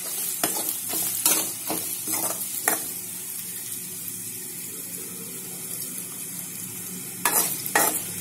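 Chopped shallots sizzling as they fry in hot groundnut oil with crushed ginger and garlic, while a steel spoon scrapes and knocks against the metal pan; a run of spoon strokes in the first three seconds and again near the end over a steady hiss of frying.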